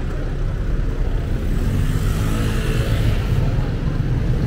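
A motor vehicle's engine running close by over a steady low rumble, loudest about two to three seconds in.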